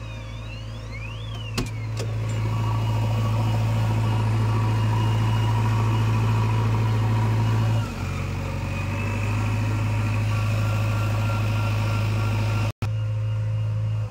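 Diesel engine of a JCB backhoe loader running steadily under load, heard from inside the cab, getting louder about two seconds in and dropping a little in pitch around the middle. A short click sounds about a second and a half in, and the sound cuts out for an instant near the end.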